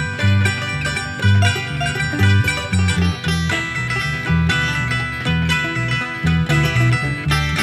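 Instrumental tune, solo multitrack home recording, with plucked strings over a bass line that moves about two notes a second.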